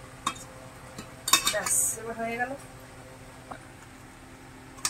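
Metal cookware and utensils clinking and knocking: scattered single clicks, with a louder burst of clatter just over a second in.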